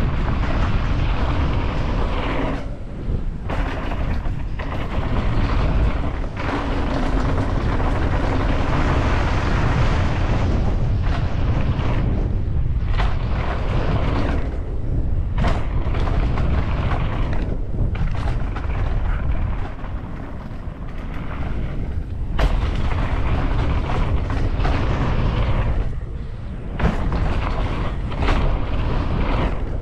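Heavy wind rush and buffeting on a moving camera's microphone while riding a rough dirt trail, with rumbling and knocks from the ride. It dips briefly several times, with sharp knocks here and there.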